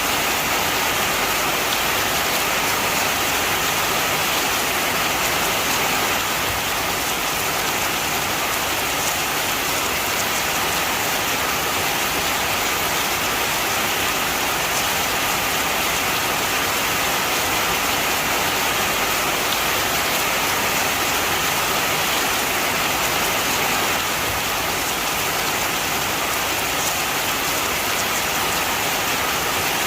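Steady heavy rain falling, an even dense hiss of drops with a few faint ticks of single drops.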